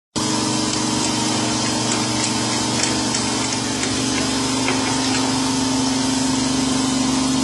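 A machine motor runs with a steady hum, with a few faint clicks as the plastic mount head is handled.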